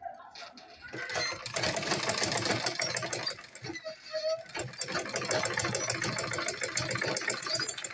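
Straight-stitch sewing machine running fast as it stitches a seam through fabric: a quick, even clatter of needle and mechanism that starts about a second in and eases off briefly a little past halfway.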